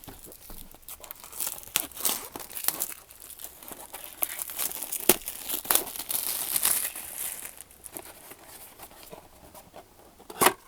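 Sealed plastic packaging being torn open and crinkled by hand: irregular rustling and crackling, with a sharp crack about halfway through and a louder one near the end.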